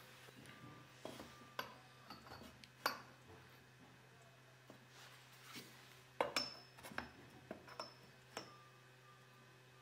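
Scattered light metallic clinks and knocks as a metal speed square and chrome-plated tubes are handled on a workbench, the louder cluster in the second half when the square is set against the tube, a few leaving a brief high ring. A steady low hum runs underneath.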